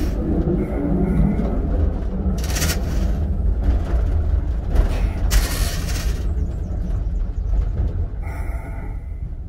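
Railcar running along the track, heard from the driving cab: a loud, steady low rumble, with two short bursts of hiss about two and a half and five and a half seconds in.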